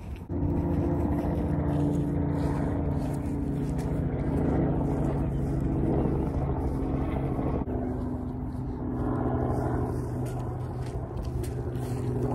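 An engine running steadily out of sight, a low droning hum whose pitch steps down a little about two-thirds of the way through.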